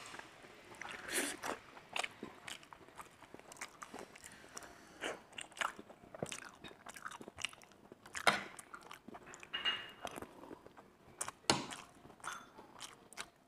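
A person chewing and biting food close to a clip-on microphone, with many short sharp clicks; the two loudest come past the middle and near the end.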